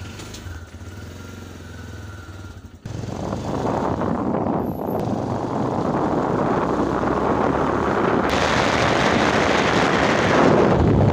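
Motorcycle engine running at low speed with a low steady hum. After an abrupt cut about three seconds in, loud steady wind rush on the microphone and road noise of the moving motorcycle take over, growing louder and brighter toward the end.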